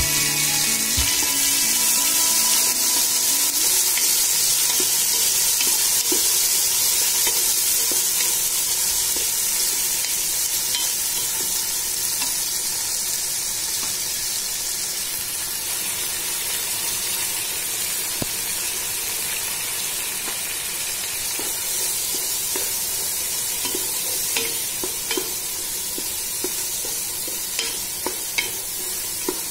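Chopped tomatoes, shallots and curry leaves sizzling in hot oil in a pot, a steady hiss that eases gradually. In the last few seconds a wooden spatula stirs them, with short taps and scrapes against the pan.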